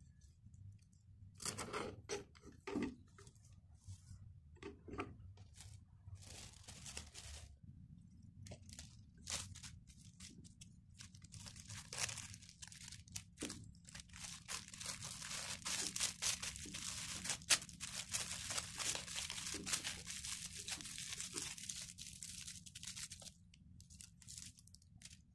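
Plastic cling film crinkling and rustling as hands wrap it around a bunch of parsley. Scattered rustles come first, then a dense, steady crinkling through the second half that stops shortly before the end.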